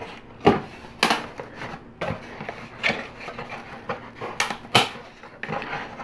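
Cardboard box flaps being pulled open and handled by hand: a scattered series of short cardboard scrapes and knocks.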